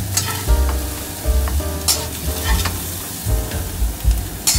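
Diced chicken and shrimp sizzling in hot oil in a wok while a metal spatula scoops them out. Several sharp scrapes of the spatula against the wok rise over the sizzle.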